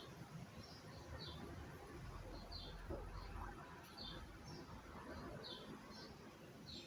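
Faint bird chirping in the background: short high chirps repeating roughly once a second over a low, steady room hum.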